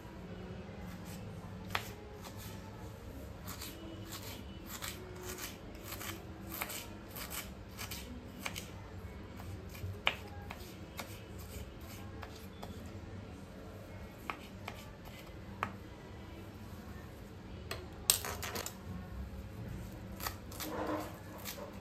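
Kitchen knife chopping ginger on a wooden chopping board: a run of short, sharp taps of the blade on the board at an uneven pace, with a louder flurry of chops near the end as coriander leaves are minced.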